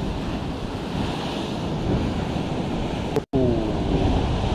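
Sea surf breaking and washing against sandstone rock ledges at the foot of a cliff, with wind buffeting the microphone. The sound drops out for an instant a little over three seconds in.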